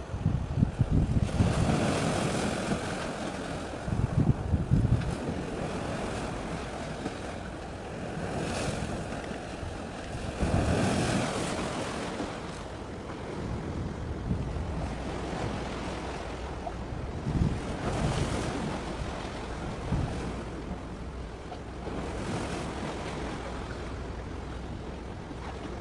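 Wind buffeting the microphone in repeated low gusts over a steady wash of sea waves.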